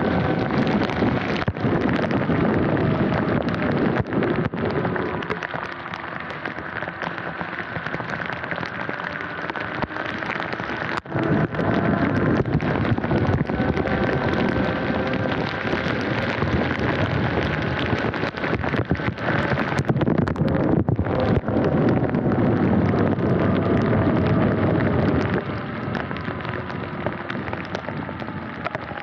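Heavy rain and riding noise from a Sur-Ron electric dirt bike on a flooded path: a dense rush of rain and tyre spray with many drops ticking on the camera, swelling and easing as the bike goes. A faint thin electric motor whine drifts up and down underneath.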